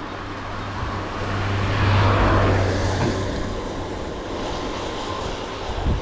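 A passing engine: a steady low hum with a rush of noise swells to its loudest about two seconds in, then fades away.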